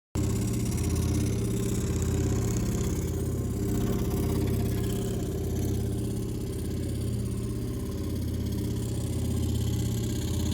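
An engine or motor running steadily at an even idle-like drone, cutting in abruptly just after the start.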